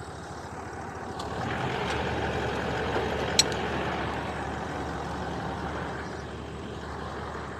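Land Cruiser's diesel engine idling steadily while synthetic winch rope is pulled off the free-spooling winch drum, a rustling noise that swells and then fades. One sharp click about three and a half seconds in.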